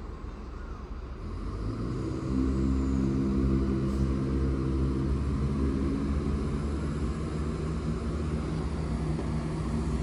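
Diesel engines of a Chiltern Railways Class 168 multiple unit throttling up about two seconds in, then running steadily with a low, even drone.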